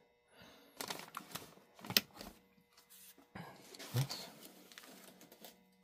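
A few light clicks and taps, with one sharper click about two seconds in, from test leads and small parts being handled on a workbench.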